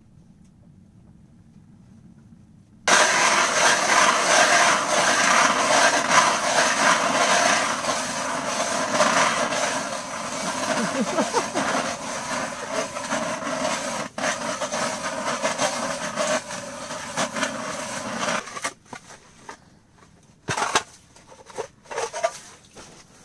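Hand-crank ice auger drilling a fishing hole through lake ice: a loud, steady crunching grind of the blades cutting ice, starting about three seconds in and lasting about fifteen seconds, then a few short scrapes and knocks near the end.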